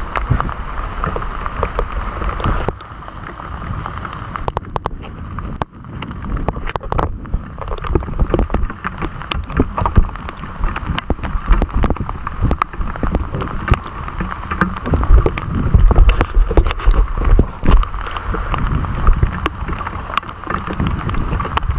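Heavy rain spattering on the camera as many sharp ticks over a steady hiss, with wind buffeting the microphone as a deep rumble; the rumble and the ticks ease briefly a few seconds in.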